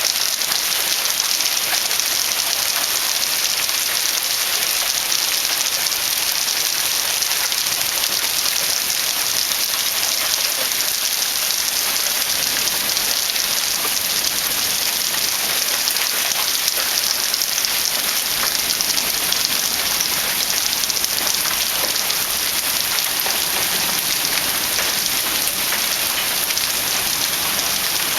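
Heavy rain falling in a steady, dense patter of fine ticks.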